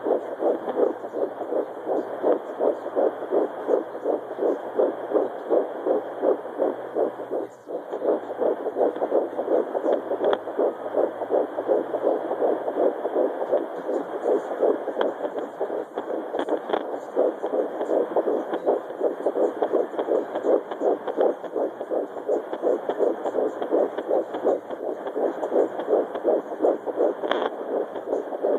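Fetal doppler picking up a 12-week fetus's heartbeat: a fast, steady whooshing pulse at nearly three beats a second, briefly dropping out about seven seconds in.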